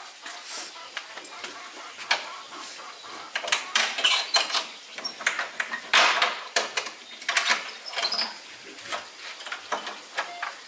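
A run of irregular knocks, taps and clatters, coming thick and fast in the middle and thinning out towards the end.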